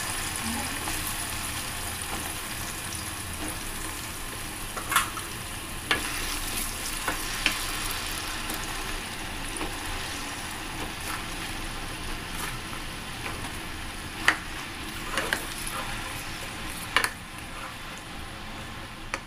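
Cubed eggplant sizzling in oil in a stainless steel wok, a steady hiss. Starting about a quarter of the way in, a wooden spatula stirs it, giving scattered sharp clicks and scrapes against the pan.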